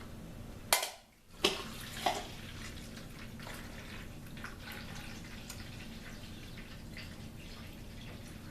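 Two sharp clicks near the start, then water trickling and dripping in a drip coffee maker over a steady low hum as fresh water is put through it to rinse out the vinegar.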